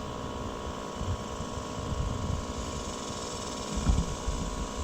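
Battery-powered bee vacuum's fan motor running steadily on its low setting, a constant hum with uneven low rumbling underneath.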